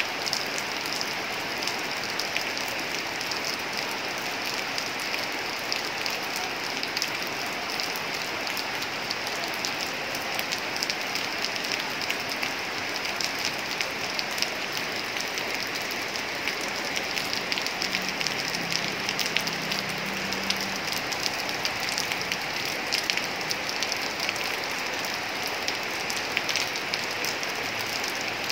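Heavy rain falling steadily on sheet-metal roofs and trees: an even hiss dense with sharp little ticks of individual drops.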